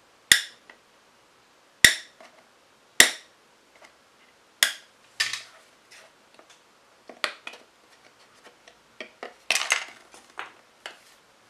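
Clicks and taps of a plastic digital alarm clock's casing being handled and turned over, with its battery compartment being worked. There are four sharp clicks in the first five seconds, then a run of lighter clicks and taps.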